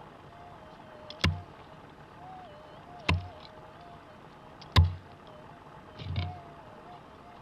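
Hand pick striking into hard, stony soil: three sharp strikes a little under two seconds apart, then a duller, longer strike near the end as it breaks out dirt. A faint wavering tone runs underneath.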